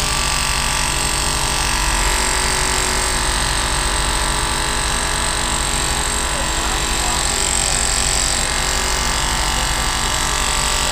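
Mini excavator's diesel engine running steadily under work.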